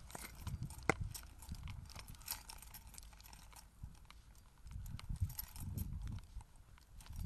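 Footsteps of a person walking on a hard lane surface: a run of irregular sharp clicks over low rumbling thumps.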